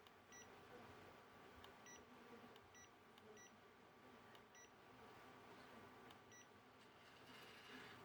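Near silence with faint, short electronic beeps, a handful of them at irregular intervals.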